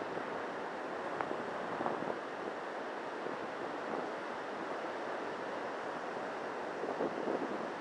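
Steady wash of surf breaking on a sandy beach, with wind on the microphone and a few louder gusts near the end.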